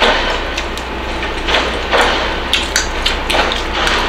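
Small dog chewing a hand-fed treat: several short crunching noises over a steady low hum.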